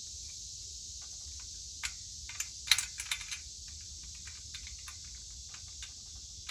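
Small wrench clicking and tapping against a bolt and the steel tube frame of a ladder stand seat as a bolt is tightened by hand: a run of irregular light metallic clicks, bunched together and loudest about a third of the way in. A steady high hiss continues behind.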